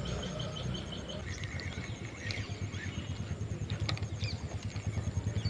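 Fishing reel being cranked to retrieve the line, a fast even rattle that grows a little louder toward the end. Small birds chirp briefly a few times.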